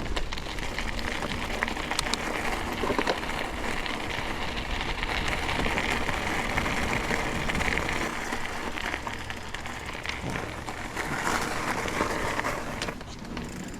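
A bicycle rolling along a trail: a steady hiss of tyres on the ground with scattered clicks and rattles. It eases off near the end.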